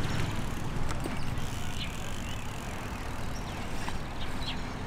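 BMX bike rolling over concrete with a steady low rumble, with a few light knocks from the bike during a front-wheel trick.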